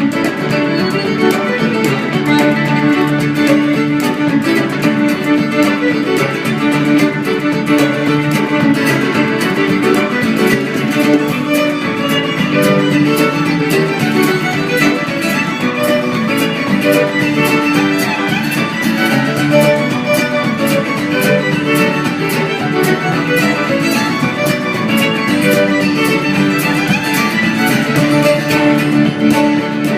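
Fiddle playing a Cape Breton-style tune with quick-moving notes, with guitar accompaniment.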